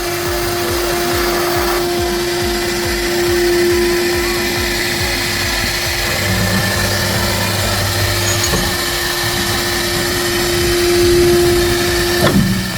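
Single-head CNC milling machine running, its spindle giving a steady whine as it mills an aluminium profile for a lock cutout. A brief falling sweep in pitch comes near the end.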